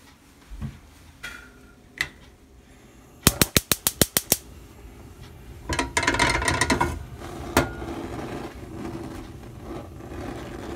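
Gas range spark igniter clicking rapidly, about eight clicks in a second, then a steady hiss as the burner heats the olive oil and butter in the pot.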